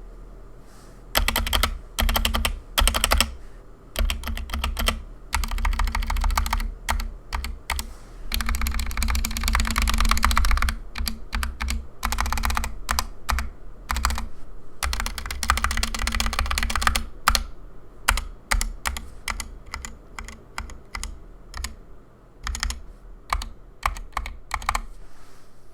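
Typing on a Punkston TH61 60% keyboard with stock Gateron Optical Red linear switches: bursts of key clacks, with fast runs of typing around the middle, then slower, separate keystrokes toward the end.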